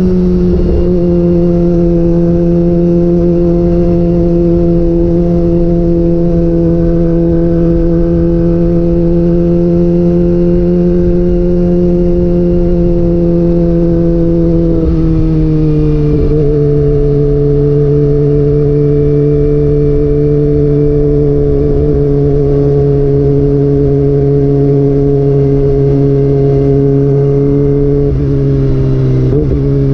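Kawasaki ZX-25R's 250 cc inline-four running through a DX Generation GPR exhaust with the dB killer removed, cruising at a steady engine speed. The note steps down in pitch about halfway through and drops again near the end.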